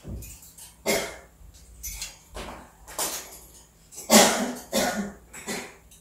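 African grey parrot making a series of short, sharp vocal sounds, about seven in all, the loudest a little past the midpoint.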